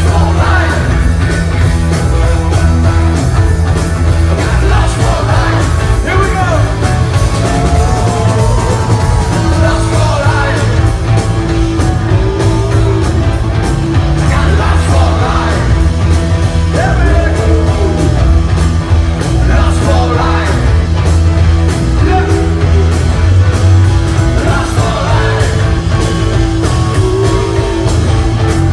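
Live rock band playing loud, with a steady heavy bass and drums and a male singer's vocal lines coming and going, heard from the crowd.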